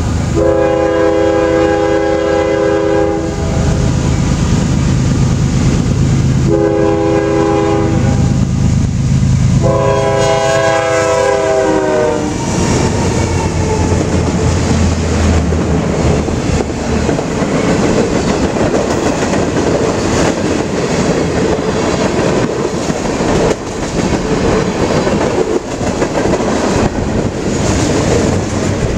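Diesel freight locomotive's horn sounding three blasts as it approaches; the third blast drops in pitch as the locomotive passes. The engine rumble then fades and a long freight train's cars roll past, wheels clacking over the rail joints.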